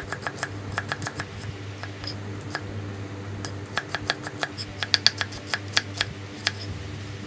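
Kitchen knife slicing shallots on a thick end-grain wooden chopping board: quick, irregular taps of the blade striking the wood, a few a second, over a steady low hum.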